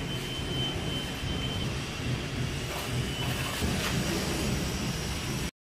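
Steady low rumble of construction-site background noise with a faint high whine, and a few short scraping clicks between about three and four seconds in; the sound cuts off abruptly just before the end.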